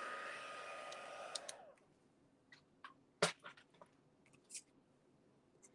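Embossing heat tool's fan running with a steady whine, switched off about a second and a half in and winding down in pitch. A few light clicks and taps of tweezers and paper follow, one sharper click a little after three seconds.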